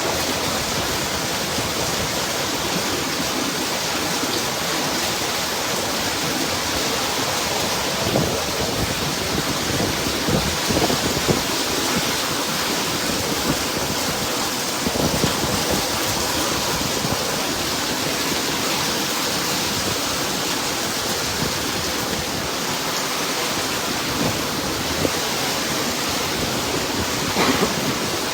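Steady, loud rush of water from storm flooding, with a few brief louder thumps about a third of the way in, around the middle and near the end.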